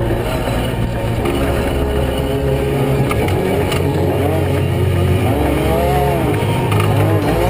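Off-road prerunner race truck engine running hard, its pitch rising and falling as it revs up and down, over a deep rumble, with a couple of brief knocks about three and four seconds in.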